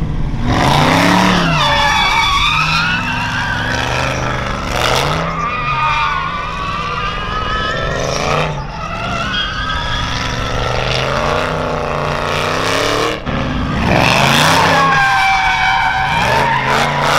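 Dodge muscle car drifting in circles: the engine revs rising and falling again and again as the throttle is worked, over a wavering screech of sliding tyres.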